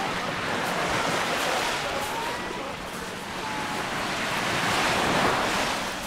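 Small sea waves breaking and washing over a fine shingle shore, the surf swelling to its loudest about five seconds in. Faint distant voices of bathers carry over it.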